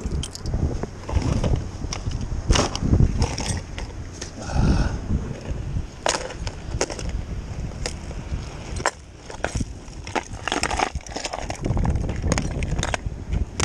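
Irregular crunching and knocking from handling noise close to a body-worn microphone and steps on gravel, over a low, uneven wind rumble.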